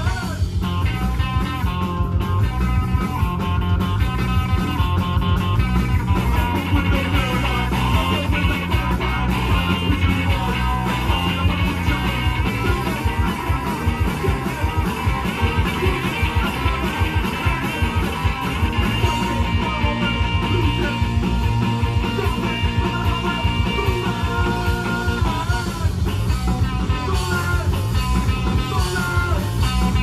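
Live rock band playing: electric guitars and a drum kit at full volume, with a man singing into a microphone.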